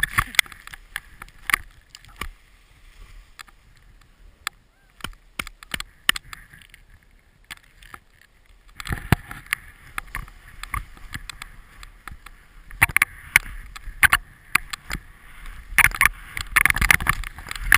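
Snowboard sliding and turning through deep powder, heard from a body-mounted GoPro: a rushing swish of snow with many sharp knocks and clatters. It quietens for several seconds early on, then picks up again and grows loudest and choppiest near the end.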